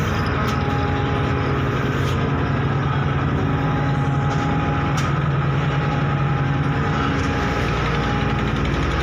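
Heavy diesel engines running steadily aboard a car ferry: an even low drone with a constant hum over it, and a few faint clicks.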